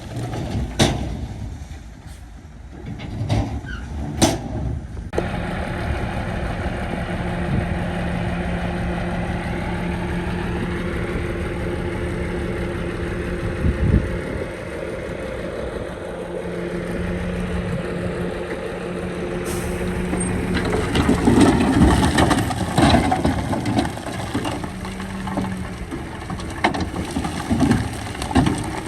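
Heavy diesel earth-moving machinery running steadily with a low engine hum. There are a few sharp knocks in the first few seconds and a stretch of louder metallic clanking about three quarters of the way through.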